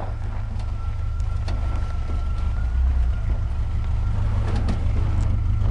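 A 1985 Toyota pickup's engine running low and steady as the truck crawls slowly over rocks, with a few faint crunches of stone under the tyres.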